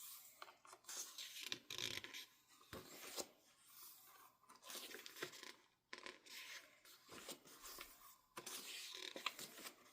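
Faint, irregular paper rustling and scraping: the pages of an album photobook being turned and handled.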